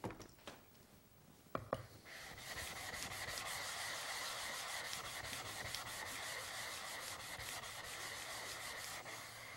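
Coarse diamond lapping plate rubbed back and forth by hand over a wet sharpening stone to flatten it: a steady, gritty scraping that starts about two seconds in. A couple of light knocks come just before it.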